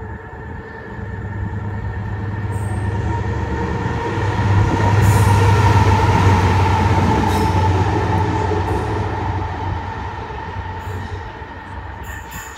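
Freightliner Class 70 diesel locomotive, a GE PowerHaul with a V16 engine, passing close by. Its low engine drone builds, is loudest about five to seven seconds in, then fades as it moves away.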